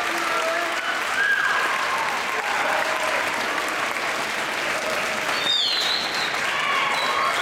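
Audience applauding steadily, with scattered shouts and a high whoop over the clapping about five and a half seconds in.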